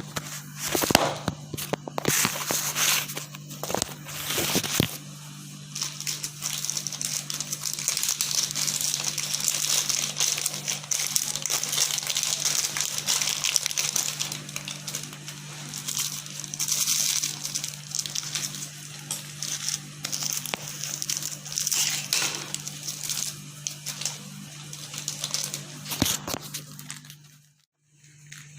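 Crinkling and rustling of a plastic packet of kadukkai (myrobalan) powder being opened and handled, with clicks in the first few seconds, over a steady low hum.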